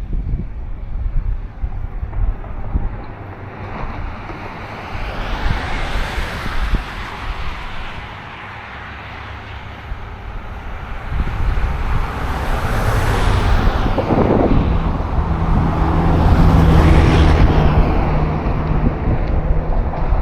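Wind buffeting the microphone while vehicles pass on a nearby road. There are three swells of tyre noise that rise and fade, one about a third of the way in and two in the second half, and the last comes with a low engine hum.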